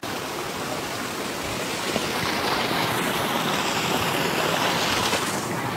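Steady rushing of flowing water, an even hiss with no rhythm or pitch.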